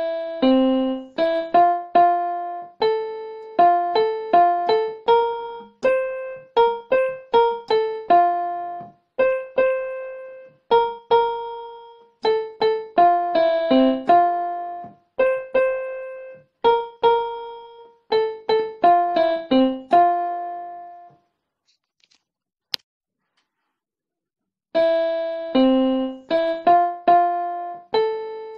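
Background music: a simple keyboard melody of single struck notes that fade away. It stops about three quarters of the way through, with one short click in the gap, and starts again a few seconds later.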